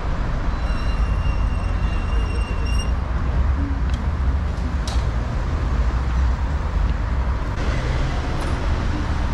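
Steady city street traffic noise with a deep low rumble. A thin, high steady whine sounds from about the first to the third second.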